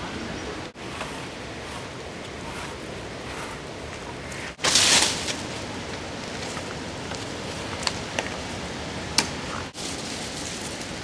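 Steady outdoor noise with a brief loud rustle about four and a half seconds in, followed by a few sharp clicks.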